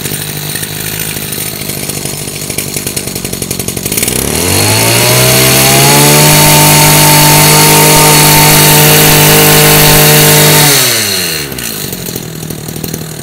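Kawasaki TG28 28cc two-stroke brush cutter engine idling, then revved up about four seconds in with a rising whine, held at full throttle for about six seconds, and dropped back to idle near the end. It runs very smoothly.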